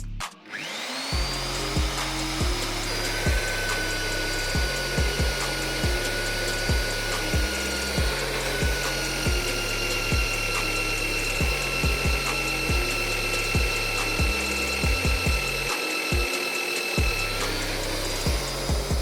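An electric power tool spins up about half a second in, runs at a steady high whine for most of the time and winds down near the end, with background music beating underneath.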